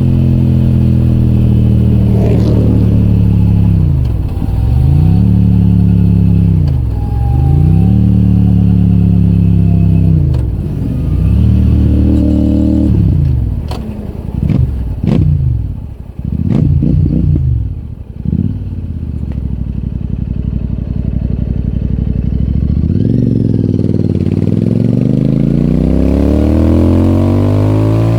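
Royal Enfield Super Meteor 650's parallel-twin engine through an AEW TE 202 aftermarket exhaust: the revs fall and climb again three times, then drop with a run of sharp pops and crackles. After a low steady stretch the revs climb again near the end.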